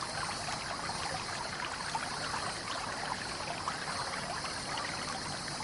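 Steady trickling running water, like a small stream, with many light drips and ticks throughout.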